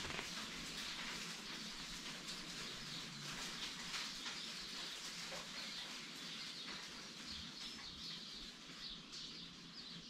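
Many small birds chirping in a steady chorus, with quick chirps that stand out more clearly near the end.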